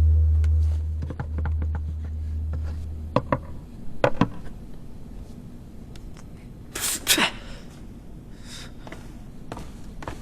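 A low musical drone fades out over the first few seconds. Then come a few sharp knocks and taps, and a short rustling burst about seven seconds in, over quiet room tone.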